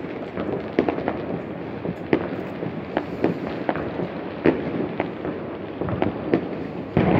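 Fireworks and firecrackers going off: irregular sharp bangs and pops, several a second, over a continuous crackle.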